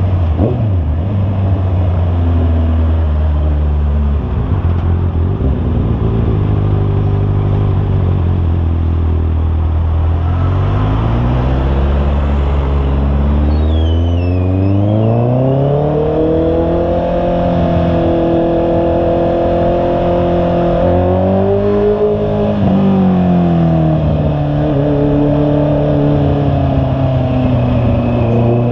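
Honda CB650R's inline-four engine running under way, its pitch falling and rising with the throttle and gear changes. It climbs steadily from about ten seconds in, holds high for a few seconds, then drops back near the end.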